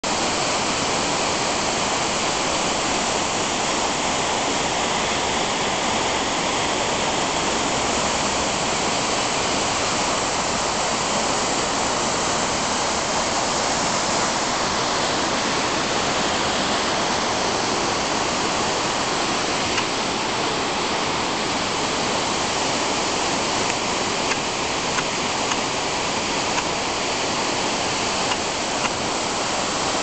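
Mitarai Falls, a three-tiered waterfall about 25 m high, pouring into a gorge: a steady, loud rush of falling water.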